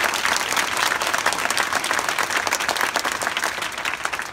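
Crowd applauding, dense steady clapping that starts to die down near the end.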